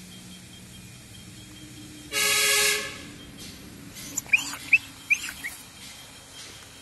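A single steady horn-like blast, under a second long, about two seconds in, the loudest sound. It is followed by a handful of short high chirps.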